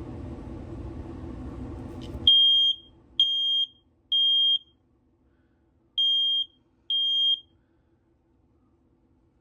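Smoke alarm sounding its high-pitched beep in the temporal-three pattern, set off by aerosol test smoke: three half-second beeps, a pause, then two more before it stops. Low steady background noise comes before it and cuts out as the beeping starts.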